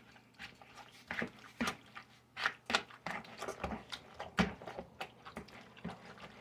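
Potato masher pressing drained canned peaches and mixed fruit in a bowl: irregular wet squelching strokes and clicks, about one or two a second.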